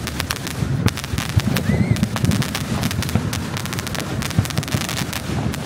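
Consumer fireworks going off: a dense, irregular stream of sharp crackles and pops over a continuous low rumble of bangs.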